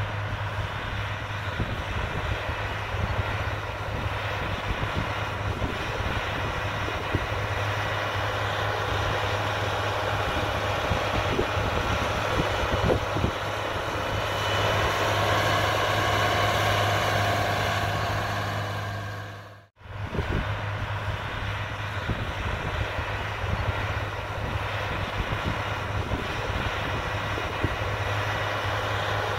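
Agco Allis 9785 tractor's diesel engine running steadily under load as it pulls a 16-row corn planter, with a constant low hum. The sound swells for a few seconds in the middle and cuts out for a moment about twenty seconds in.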